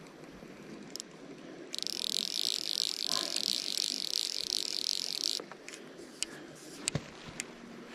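Fly reel's click-and-pawl drag buzzing for about three and a half seconds as line is pulled off the spool, then a few single clicks.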